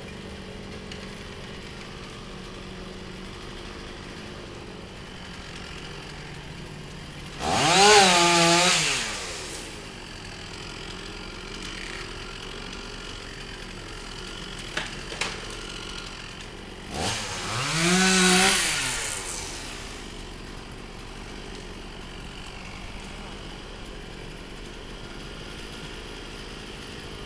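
Chainsaw idling, revved up twice for two or three seconds at a time, its pitch rising and falling back to idle each time. Two short sharp clicks come between the revs.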